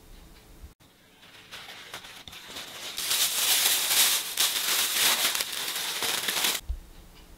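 Clear plastic bag crinkling as it is handled and packed, building up and getting louder about three seconds in, then stopping abruptly near the end.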